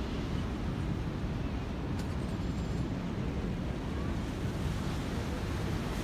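Steady low rumble of wind on the microphone over the constant wash of the sea against the rocky shore below.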